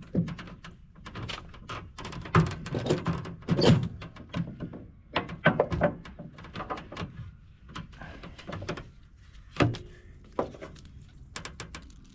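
A run of irregular knocks, clicks and thunks, several of them loud, from work on wooden roof trusses being moved and set in place.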